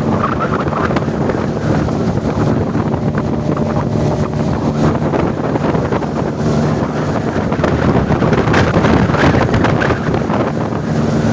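Motorboat engine running steadily under way, a constant low hum, with wind buffeting the microphone.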